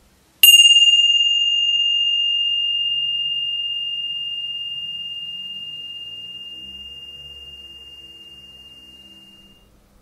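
A meditation chime struck once, ringing with one clear high tone that fades slowly over about nine seconds. It signals the start of a relaxation breathing exercise.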